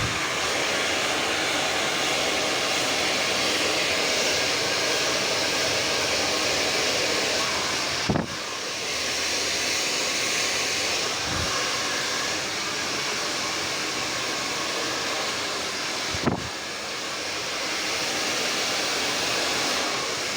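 Handheld hair dryer blowing steadily during a straight blow-dry, its airflow shifting a little as it is worked through the hair. Two brief knocks come about eight and sixteen seconds in.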